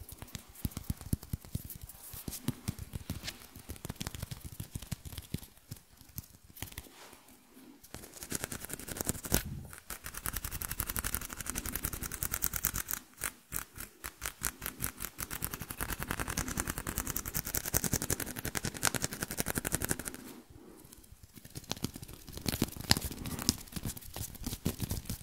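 Close-miked hand sounds at a handheld recorder's microphones: fingers and palms rubbing, tapping and brushing over and around the mics in rapid crackly strokes, broken by a few short pauses.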